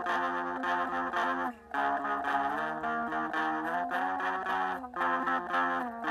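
Solid-body electric guitar playing sustained lead notes that step from pitch to pitch, with short breaks about a second and a half in and near five seconds.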